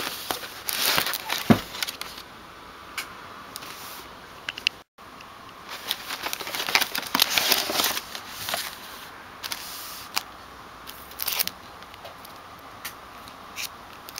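Cardboard phone box and its plastic wrapping being handled and opened: irregular rustling, crinkling and light clicks, heaviest near the start and again in the second half, with a brief total dropout about five seconds in.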